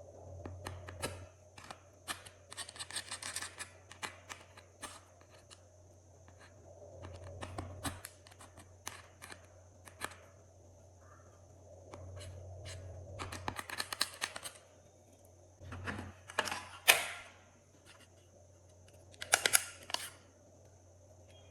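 Glossy slime being handled and mixed, making irregular sticky clicks and crackles with a few longer crinkly bursts, over a faint steady low hum.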